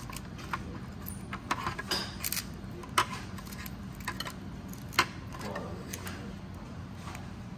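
Small cracks and snaps of a cooked blue crab's shell and gills being pulled apart by hand as the crab is cleaned for picking, the two sharpest cracks about three and five seconds in. A low steady hum runs underneath.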